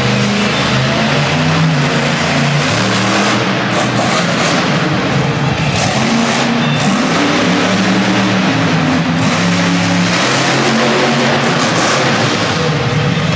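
Hurricane Force monster truck's supercharged V8 engine running hard through a freestyle run, its pitch repeatedly climbing and dropping as the throttle is worked.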